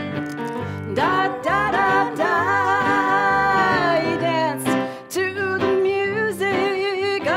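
Live song with a woman singing long held notes with vibrato over keyboard and electric guitar; the keyboard plays alone for about the first second before the voice comes in, with a short break in the singing about two-thirds of the way through.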